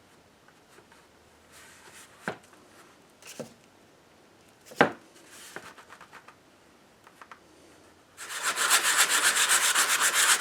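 Sanding cured bondo filler on the repaired figure: a few light knocks and taps, then about 8 s in a loud, fast, rhythmic rasping of abrasive rubbing over the hardened filler.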